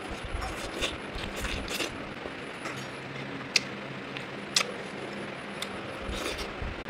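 Scattered sharp clinks and light knocks of small hard objects being handled, two louder clinks about a second apart near the middle, over a steady low hum.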